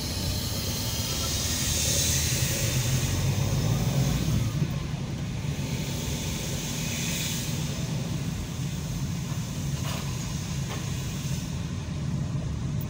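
Car driving slowly, heard from inside the cabin: a steady low engine and tyre rumble with a hiss that swells up twice.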